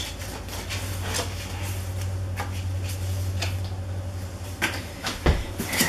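Paper leaflets and cards being handled and leafed through, with scattered rustles and crinkles and a low thump near the end, over a steady low hum.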